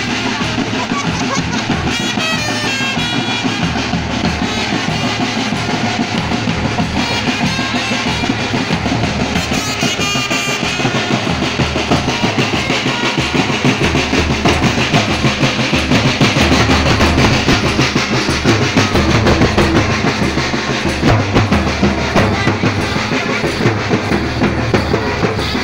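Marching snare and bass drums played with sticks by a dance band, a loud, dense steady beat, with a high melodic line coming in briefly near the start and again about eight to eleven seconds in.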